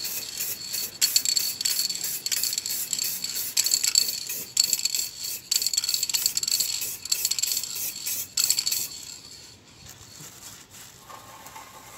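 Aerosol spray can of chrome paint hissing in a string of short and longer bursts, stopping about nine seconds in.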